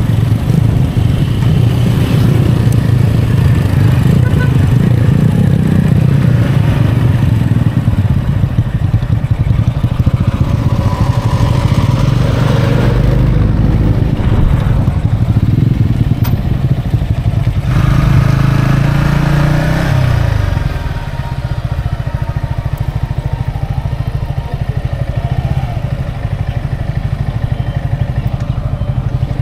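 Yamaha XSR155's single-cylinder engine running while riding, with wind rush. About two-thirds of the way in the revs fall away and it settles to a quieter, lower-speed run as the bike slows to a stop.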